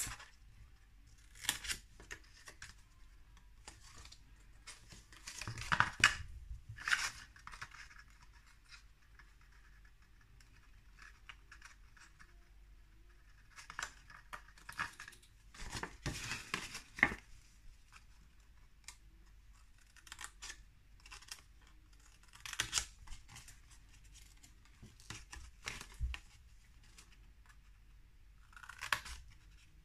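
Small craft scissors making short snips into folded cardstock, the snips coming at irregular intervals between pauses. Rustling of the stiff card as it is turned and handled is mixed in.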